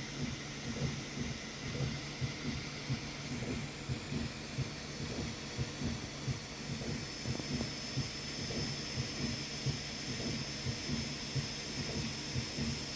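3D printer running a print: its stepper motors buzz in quick, irregular short pulses as the head moves, over a steady hum, with a thin high whine coming in about halfway through.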